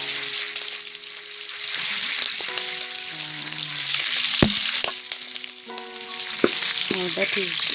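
Pork frying in its own rendered fat: a loud, steady sizzle that swells and eases, with a few sharp knocks from about the middle on.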